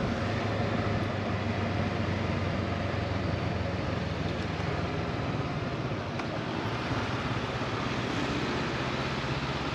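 Honda CB500X motorcycle running steadily on the road, a low engine hum under a steady rush of wind noise.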